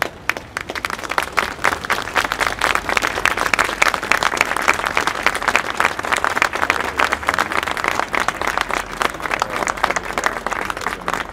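Crowd applauding: a few scattered claps that build within a second or two into steady, dense clapping.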